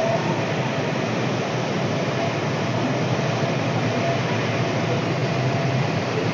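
Steady drone on the open rear deck of a moving ferry: the vessel's engines running at cruising speed, mixed with the rush of water and wind on the microphone.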